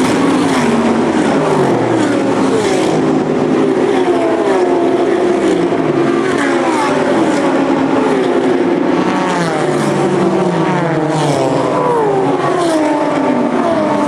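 A continuous stream of GT and touring race cars passing at speed, many engines overlapping. Each one's pitch drops as it goes by, while others climb as they accelerate through the gears.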